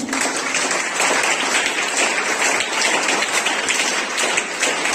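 Schoolchildren applauding, many hands clapping together in a dense, even patter.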